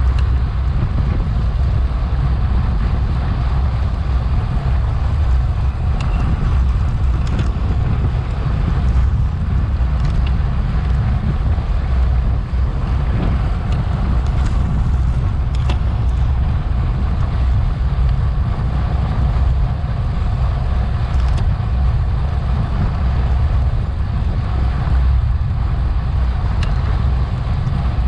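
Steady wind noise buffeting a bike-mounted action camera's microphone while riding at race speed, with a few faint clicks scattered through.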